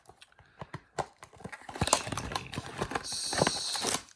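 Handling of a small cardboard blind box and its wrapping: light taps and knocks, then rustling, with a steady tearing or scraping sound about three seconds in as the box is opened.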